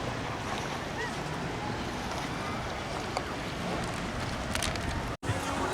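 Steady sea noise with wind buffeting the microphone, waves washing on the rocks. It breaks off abruptly about five seconds in.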